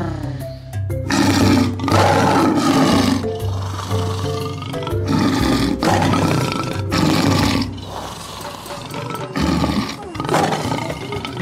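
Lion roaring: a run of loud roars and grunts about a second apart, over background music.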